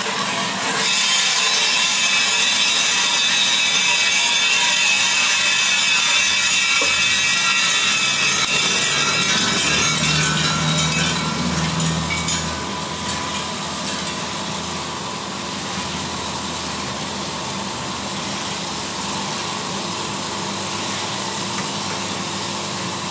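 Freshly roasted coffee beans dropping out of the roaster drum into the cooling tray and rattling as the tray's rotating arms stir them. The louder rush of beans eases off about twelve seconds in, leaving a steadier swishing of the beans being stirred over machine noise.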